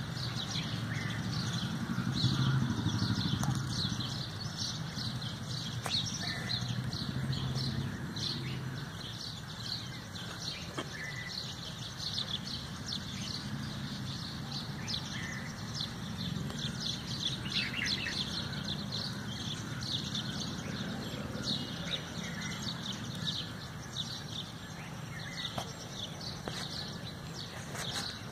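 Many small birds chirping continuously in quick, overlapping chirps, over a steady low rumble.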